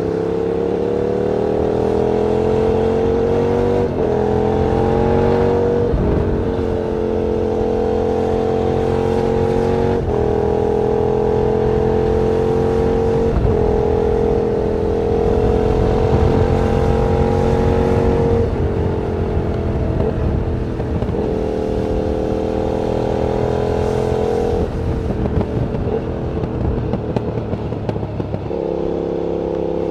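KTM 990 Super Duke's 999 cc V-twin under way, heard from the rider's seat. The revs climb in each gear, with short breaks at the gear changes, and ease off and fall a few times. Wind rushes steadily across the microphone.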